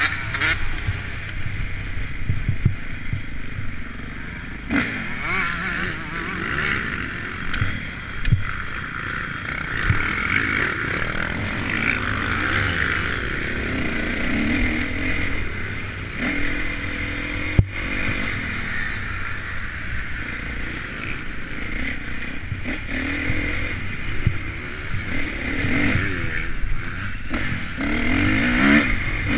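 Honda CRF450 motocross bike's single-cylinder four-stroke engine revving up and down as the bike is ridden round a dirt track, with a few knocks from the bumps and one sharp knock about two-thirds of the way through.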